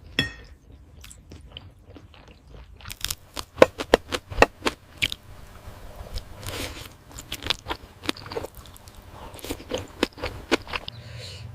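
Close-miked chewing and biting into spicy octopus, with runs of sharp wet crunching clicks, the loudest a few seconds in and more again in the second half.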